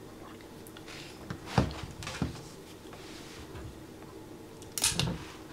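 Handling knocks as the revolver is picked up and settled onto a padded bench rest; the sharpest knock comes about a second and a half in. Near the end, after a couple of small clicks, comes a single short pop: a Ruger SP101 .22 revolver firing a reduced-charge CCI CB Quiet round.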